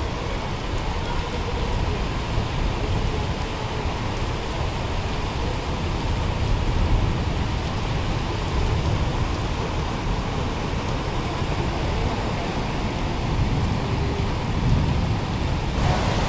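Heavy rain falling steadily on a flooded street, with a car driving through the standing floodwater and splashing partway through.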